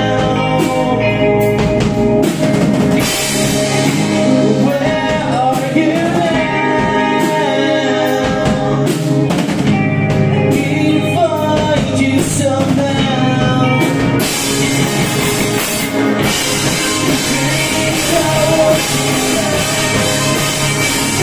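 Live rock band playing: electric guitars and a drum kit under a male lead singer. About two-thirds of the way through, the cymbals come in heavier.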